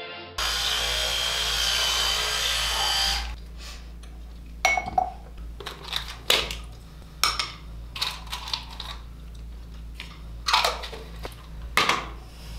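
A loud steady whirring noise for about three seconds that stops abruptly, then scattered clicks and knocks of small toiletry items being picked up and set down at a bathroom sink.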